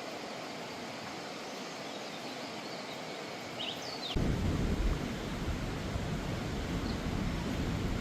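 Steady rushing noise of floodwater. About four seconds in it jumps abruptly to a louder, deeper rumble.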